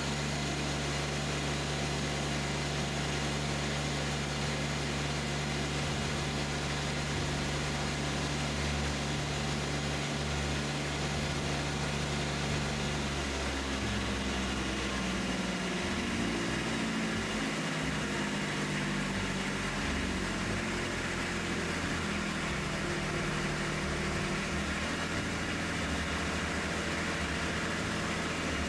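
Kubota B2601 compact tractor's three-cylinder diesel engine running steadily after its fuel system has been bled. About halfway through, its pitch shifts up and wavers.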